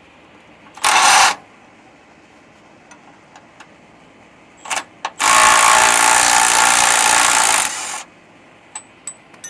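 A power tool run in bursts: a short burst about a second in, two quick blips, then one long run of about two and a half seconds.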